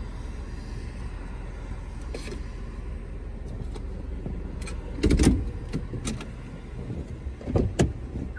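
Steady low rumble of an idling car, with a few short knocks and thumps. The loudest comes about five seconds in and another near the end.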